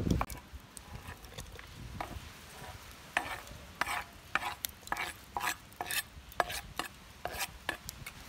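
A metal spoon scraping and tapping chopped onion off a wooden cutting board into a metal pot, a string of short scrapes and clicks about two a second, starting about three seconds in.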